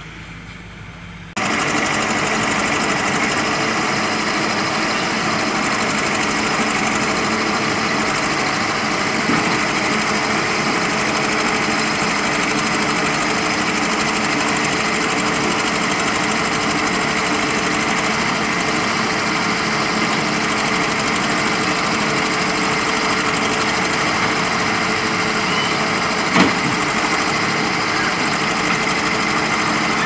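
JCB 3DX backhoe loader's diesel engine running steadily while the backhoe digs, cutting in abruptly just after the start. There is a single sharp knock near the end.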